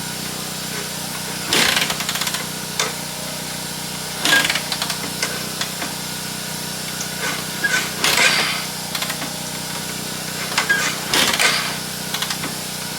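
An ATV being cranked by hand with its manual starter, four short rasping strokes a few seconds apart, the engine not catching. A steady low hum runs underneath.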